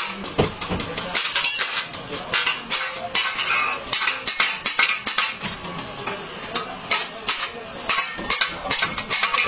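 Irregular hammer blows on car body sheet metal, several a second, from panel beating in accident repair.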